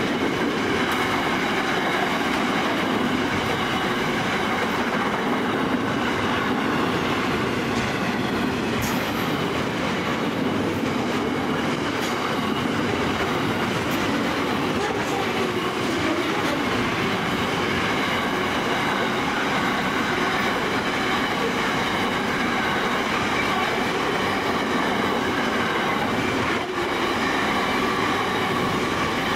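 Freight train's intermodal container wagons rolling past at about 80 km/h: a steady noise of steel wheels running on the rail, with faint high ringing tones above it.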